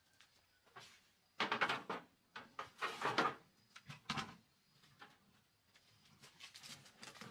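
A plastic bucket scraped and knocked against the metal tray of a wheelbarrow, several loud scrapes in the first few seconds and a shorter one after, then quieter rattling and rustling as the wheelbarrow is lifted and rolled over grass.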